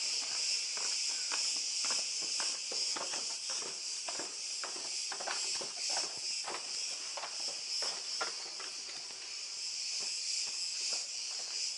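Footsteps going down stone steps and along a dirt passage, about two or three a second. Under them is a steady, high-pitched drone of cicadas.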